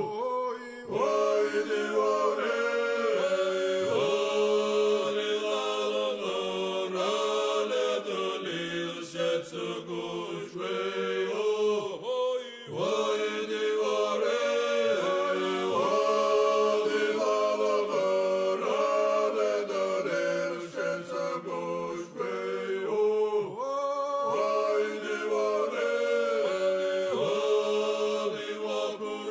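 Georgian polyphonic choral singing by a male a cappella ensemble: several voices holding and shifting sustained chords.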